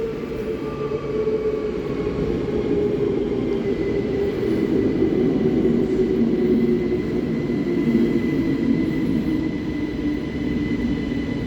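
Electric train pulling into the station, its running noise steady while its tones fall slowly in pitch as it slows. A steady high tone joins about four seconds in.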